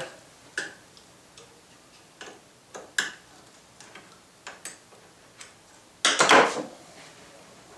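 Light clicks and taps of a hex driver on the metal lock collars of a Moxon vise as they are loosened, then a short, louder scrape about six seconds in as the wooden jaw is handled.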